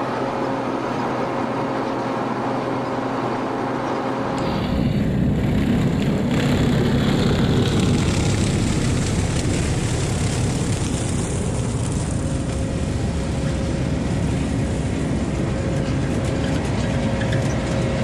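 A steady machine drone with a few steady tones inside a potato harvester's cab. About four seconds in this gives way to a louder, deeper rumble of a tractor pulling a seed drill through loose soil, with the noise of earth being worked.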